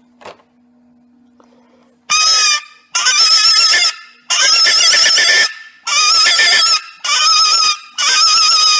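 AC73 rabbit-distress predator call for foxes blown by mouth in six loud, wavering squeals, each half a second to a second long with short breaks between, starting about two seconds in. This long-range call is louder than the other rabbit-squeal calls.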